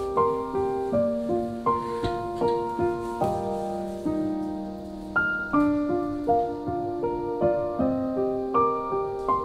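Background piano music: a gentle melody of single struck notes, each fading before the next, at an easy, even pace.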